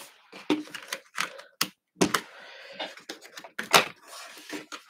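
Irregular sharp clicks and knocks of hands handling a Framework laptop's chassis and keyboard cover, about a dozen taps at uneven spacing.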